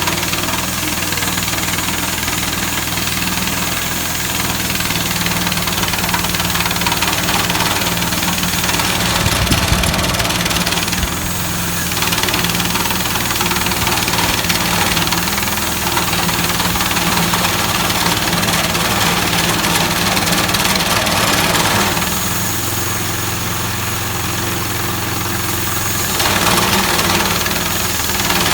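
Gasoline engine of a Harbor Freight band sawmill running under load while the blade cuts through a log. The engine note shifts a couple of times, once about a third of the way in and again for a few seconds near the end, as the engine bogs down.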